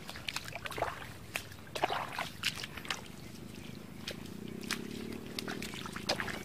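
Footsteps squelching and splashing through mud and shallow water, an uneven run of wet slaps and clicks a few times a second.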